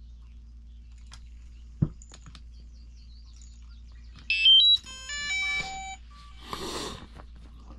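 DJI drone equipment powering on: a short electronic startup tune of stepped beeps at several pitches, about four seconds in and lasting a second and a half. A click comes before it and a brief rustle after.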